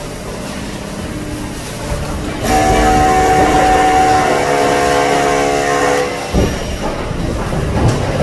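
Excavator's hydraulic circular saw attachment cutting a concrete slab. A loud, steady whine of several tones starts about two and a half seconds in and cuts off suddenly about six seconds in. Low rumbling and clatter run before and after it.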